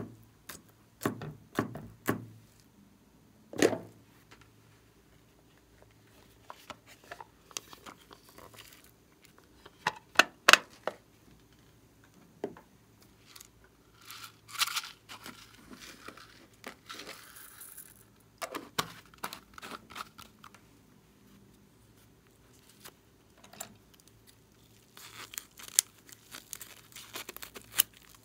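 Handling of slime supplies in ASMR style: scattered knocks and clicks of plastic containers being picked up and set down, then rustling of a plastic container being opened. Near the end, plastic packaging crinkles as scissors cut open a bag of putty.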